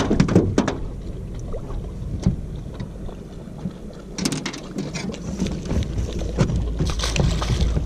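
Handling noise from a spinning rod and reel as a fish is played: a cluster of clicks near the start, then rustling and knocking. Wind rumbles on the microphone, growing in the second half.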